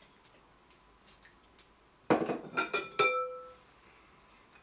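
A short clatter of glass kitchenware: several quick clinks and knocks about two seconds in, the last one ringing briefly before it fades.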